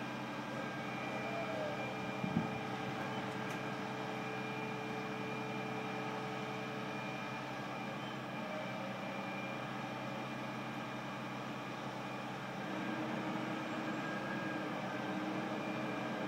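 Steady mechanical drone from construction and renovation machinery running inside an office building, several steady hums layered over a hiss. About thirteen seconds in, a further hum joins and the noise gets a little louder.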